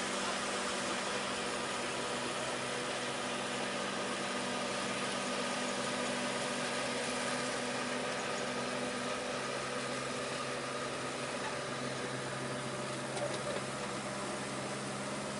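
A machine's motor running steadily, a constant hum over even noise with no changes in speed.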